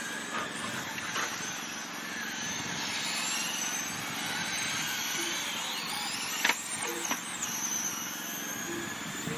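Radio-controlled race cars lapping a dirt oval, their motors whining and rising and falling in pitch as they pass on and off the throttle. There is a sharp knock about six and a half seconds in and another just after.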